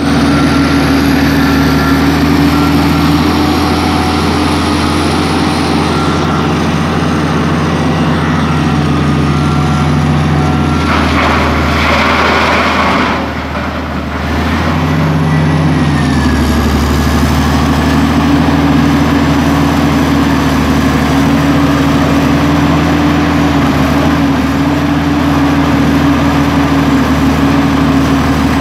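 Caterpillar 375L hydraulic excavator's diesel engine running steadily at working speed while it digs and loads. A brief rushing noise comes in about eleven seconds in.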